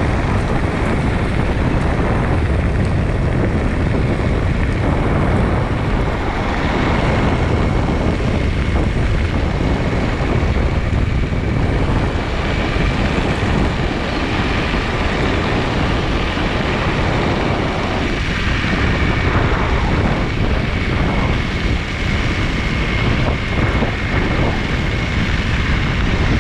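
Electric all-terrain skateboard rolling over gravel: a steady rumble of its air-filled tyres on the stones, with wind buffeting the microphone and a faint, steady high whine from the belt drive.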